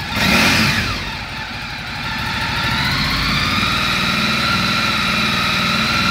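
Ducati Multistrada 1100S's air-cooled L-twin revved with one quick throttle blip that falls back toward idle. About two seconds in, the revs climb gradually and are then held steady at a raised engine speed.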